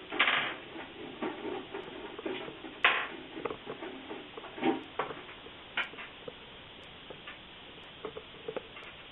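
Hands opening up a Shuttle SA76G2 small-form-factor PC case: irregular clicks, taps and rustling. The loudest come just at the start and about three seconds in, and it goes quieter for a moment around seven seconds.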